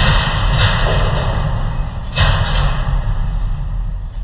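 Dull thuds and knocks from an indoor five-a-side football game over a steady low rumble: three sharp hits, at the start, about half a second in and about two seconds in.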